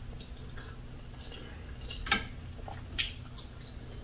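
Quiet eating noises as fufu is eaten by hand: soft mouth and hand sounds, with two short clicks about two seconds in and a second later.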